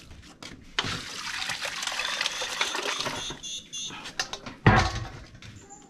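Grated coconut squeezed by hand in a metal bowl of water to press out coconut milk: wet squelching, with liquid splashing and pouring. One sharp knock about four and a half seconds in.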